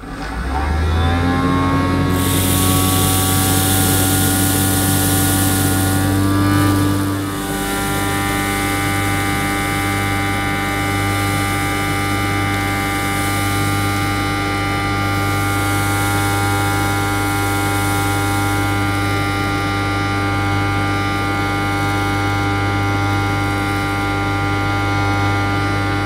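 The small battery-powered motor of a Casdon Dyson DC05 toy vacuum cleaner starts up and runs steadily with a buzzing whine as the hose end sucks up a pile of polystyrene balls. About seven seconds in, the note rises a little and gets slightly quieter, then holds steady.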